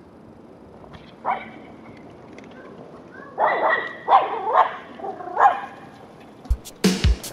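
Small dog barking and yapping in short excited calls: one about a second in, then a quick run of yaps between about three and a half and five and a half seconds. Music with a strong, steady drum beat comes in near the end.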